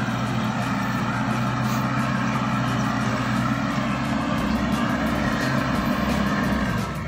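Rice combine harvester running steadily as it works through the rice crop: a constant engine drone under the whirring noise of its cutting and threshing machinery.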